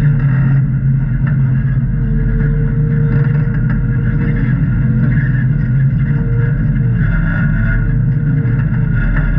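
A Jeep's engine running steadily, with a faint wavering whine above it.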